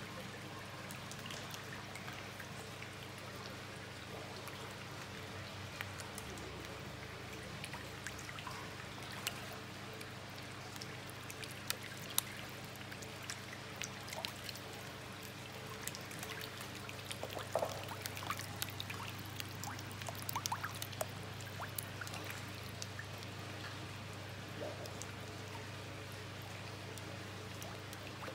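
Steady running water in a fish tank, with scattered small splashes and smacks of goldfish and koi taking floating pellets at the surface, busiest in the middle.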